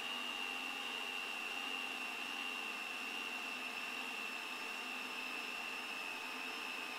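Alesis ADAT digital multitrack recorder's tape transport winding its S-VHS tape back at speed toward the start: a faint steady whir with a thin high whine over a hiss.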